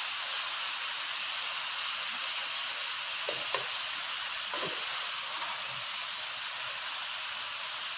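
Shredded cabbage, carrot and capsicum sizzling steadily in a hot iron kadai as their water cooks off, stirred with a wooden spatula that gives a few soft scrapes around the middle.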